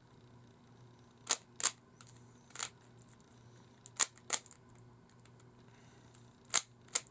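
Rubik's cube layers being twisted, each turn giving a sharp plastic click. There are seven clicks, mostly in quick pairs with pauses of a second or two between them.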